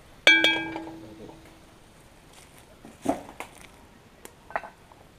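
Cookware struck once with a sharp metallic clang that rings for over a second, followed a few seconds later by lighter clatters and clinks of dishes being handled.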